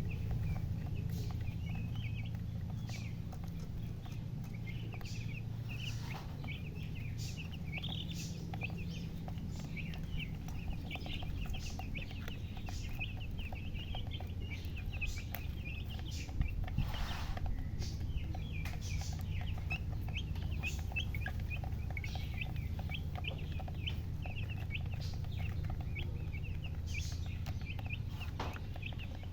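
A brood of baby chicks peeping continuously, many short high chirps overlapping, over a steady low hum with a few brief clicks.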